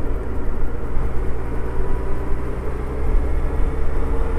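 Suzuki Hayabusa's inline-four engine running steadily at town speed, a low rumble with a steady engine note that rises a little near the end.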